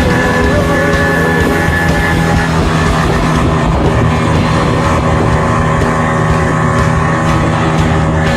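Background rock music, loud and continuous.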